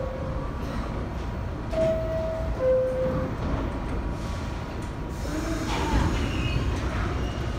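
New York City subway train standing at the platform with a steady low rumble. About two seconds in, a two-note door-closing chime sounds, a higher note then a lower one. Near the end the rumble shifts as a train starts to move.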